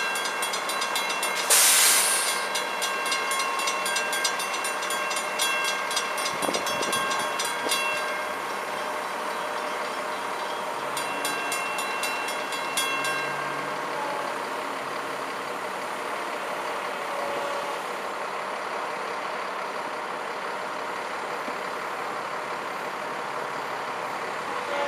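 Railroad crossing warning bell ringing rapidly, about four strikes a second, while the crossing gates lower. It stops about eight seconds in and rings again briefly around twelve seconds. A short loud hiss comes about two seconds in, and after the bell there is a steady background noise.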